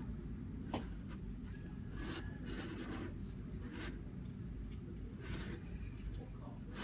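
Metal soap master mold turned by hand and slid across a tabletop: a few short rubbing, scraping sounds and a click under a second in, over a low steady hum.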